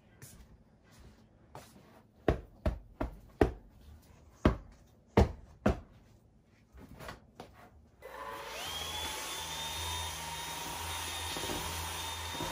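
A series of about seven sharp thumps. About two-thirds of the way through, a handheld vacuum cleaner switches on, its whine rising and then settling into a steady run as it is worked over a mattress.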